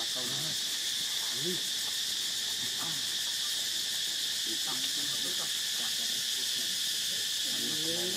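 Steady high-pitched drone of insects, unbroken and even in level, with faint low calls underneath.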